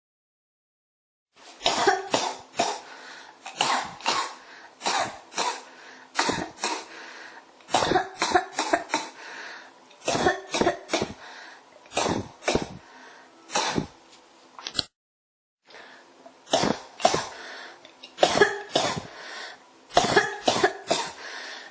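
A person in a coughing fit: runs of sharp coughs one after another, starting about a second and a half in, with a brief break about two-thirds of the way through before the coughing resumes.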